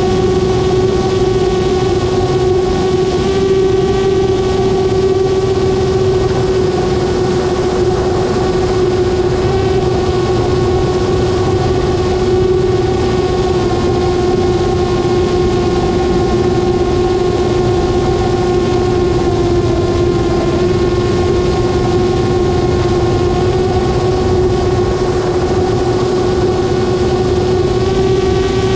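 Aircraft motor and propeller running at a steady cruise, heard from a camera on board, over a constant rush of air. Its tone holds one pitch with only slight wavers.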